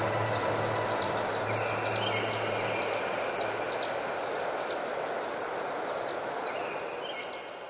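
Rushing river water, a steady dense wash, overlaid with sustained low drone tones and a scatter of short high chirps; it begins to fade out near the end.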